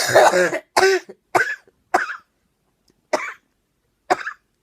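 A fit of about six coughs: a long first cough, three shorter ones in quick succession, then after a pause two more. It is a chronic cough of twelve weeks that brings up white foamy sputum, which the cougher thinks, not for sure, may be viral pneumonia.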